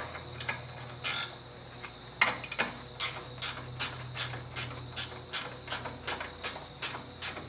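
Hand ratchet clicking as a nut on the front suspension is run down by hand, starting about two seconds in and going on evenly at about two to three clicks a second.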